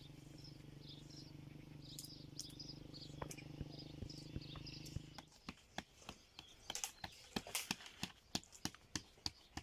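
Small birds chirping faintly over a low steady hum. About halfway the hum stops and a string of sharp, irregular taps follows.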